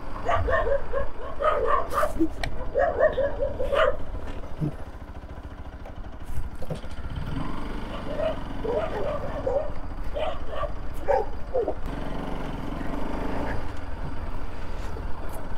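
Dogs barking in short repeated calls, in two spells: through the first four seconds and again from about seven to twelve seconds in. Underneath runs the steady low sound of a Bajaj Pulsar RS200's single-cylinder engine.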